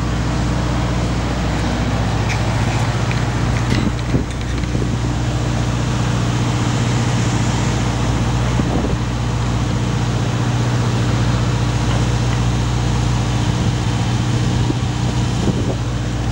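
Idling tour-bus diesel engines and generators, a loud steady low hum that does not change.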